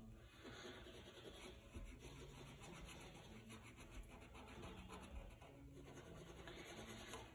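Faint scratching of a black ink marker's tip on paper, in short repeated strokes as an outline is drawn.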